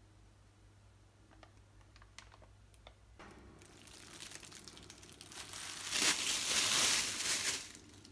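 Thin plastic produce bag crinkling as a head of broccoli is pulled out of it, swelling over a few seconds to its loudest near the end, then stopping. A few faint clicks come before it.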